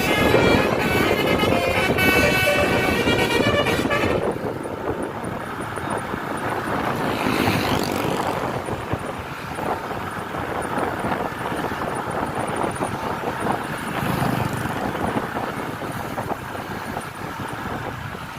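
Tour bus's multi-tone 'telolet' horn playing a short tune, which stops about four seconds in. Then steady bus engine and traffic noise, with a brief rising-and-falling sweep partway through.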